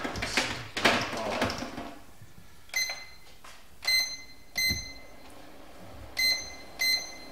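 Electric food dehydrator's control panel beeping five times, one short high beep per button press, as it is set to 50 °C for 6 to 8 hours. In the first second or so, a few plastic knocks and rattles as the machine is handled and plugged in.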